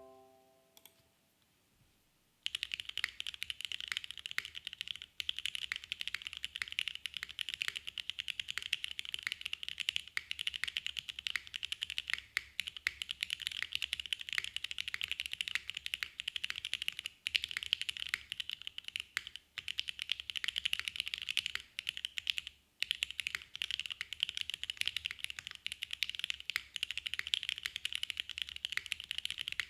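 Fast typing on a Mode 65 v2 custom mechanical keyboard with lubed Gateron Mizu Mink switches in a top-mounted polypropylene plate. The keystrokes come in a dense run beginning about two seconds in, with a few short pauses.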